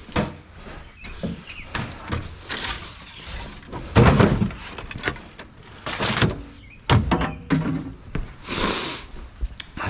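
Junk and demolition debris being handled and tossed by hand: a string of thuds and clattering knocks, the heaviest about four seconds in, with a short hissing scrape near the end.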